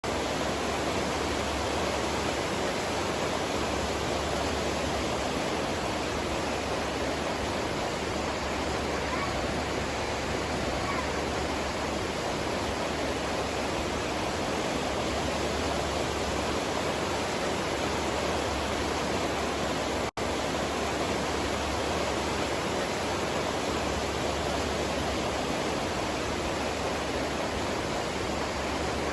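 Kinugawa River water rushing in a steady, even flow. The sound cuts out for an instant about twenty seconds in.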